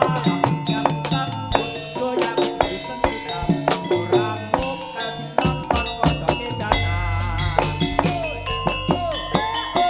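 Live jaranan accompaniment music: busy drumming with fast strikes over sustained melodic notes, and a deep low note swelling about seven seconds in.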